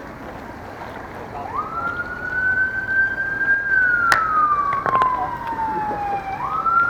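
Emergency vehicle siren wailing. Its tone rises about a second and a half in, holds, slowly falls, then starts rising again near the end, over a steady background hiss. There is a sharp click about four seconds in and a couple of knocks about a second later.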